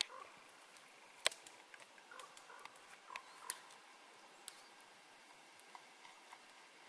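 Quiet forest ambience with a few scattered sharp clicks, the loudest about a second in and again past three seconds, and faint short high chirps.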